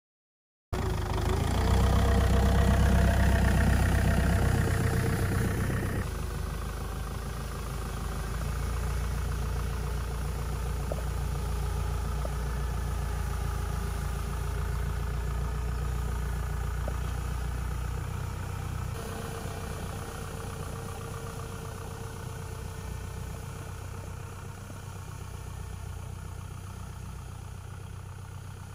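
Tractor engine running steadily as it tows a mounted turf brush. The sound starts abruptly just under a second in, is loudest over the next few seconds, and drops suddenly in level about six seconds in, with another abrupt change about nineteen seconds in.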